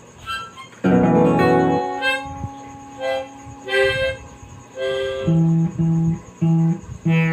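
Acoustic guitar played haltingly, single plucked notes and chords ringing out, then a low bass note picked over and over about twice a second near the end.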